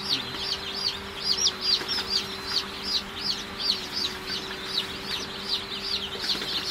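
Newly hatched chicks peeping continuously: a fast run of high, falling cheeps, about four a second, over a steady low hum.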